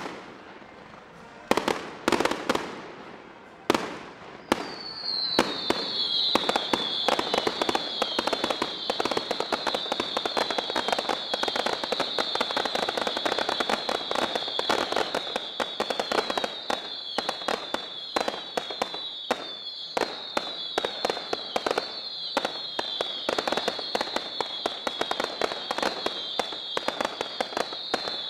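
Aerial fireworks display: a few separate bangs in the first few seconds, then from about four seconds in a dense, continuous barrage of rapid bangs. Over the barrage a high tone slides downward again and again, every second or two.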